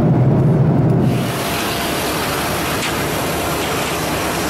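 Motor vehicle on the move: a steady low engine hum for about the first second, then an abrupt change to a steady rushing hiss of wind and road noise.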